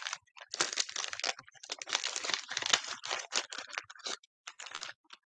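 Crinkly packaging rustling and crackling in quick, irregular bits as packaged craft items are handled.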